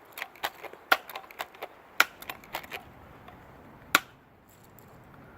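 A run of sharp clicks and snaps from a pump BB gun being worked and fired, with three louder cracks about one, two and four seconds in.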